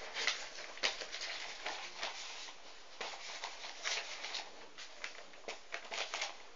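Paper rustling and crinkling as sheets are handled, with irregular light taps and clicks.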